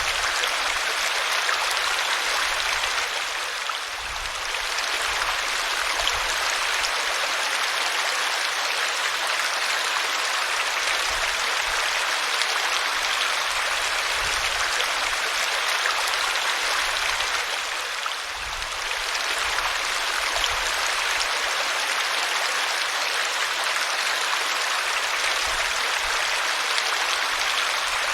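Small waterfall splashing steadily over rocks and roots, a dense rushing hiss that dips briefly twice.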